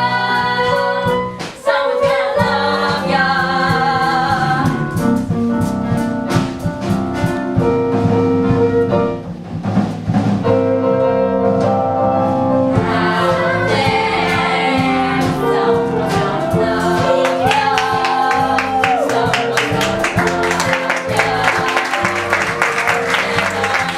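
Musical-theatre song: singing over instrumental accompaniment, with a steady beat that grows busier toward the end.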